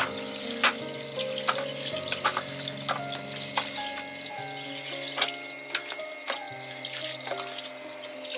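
Water running and splashing over coconut meat on a tiled floor as it is washed, with many sharp clicks and knocks of pieces and the knife on the tiles. Background music plays throughout.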